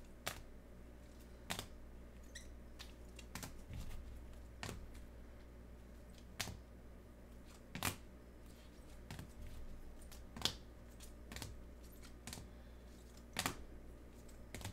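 Scattered sharp clicks and taps, about a dozen at irregular intervals, over a faint low steady hum.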